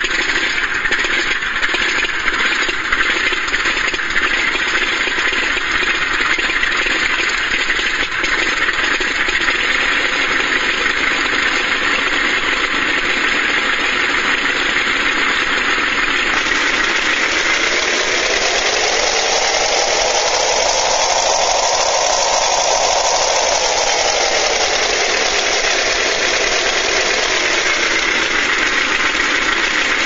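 Recorded Nakajima Sakae radial aircraft engine sound played through a hobby RC sound unit's two small speakers. The engine runs steadily, then about halfway through revs up for a few seconds and drops back to its earlier speed a few seconds before the end.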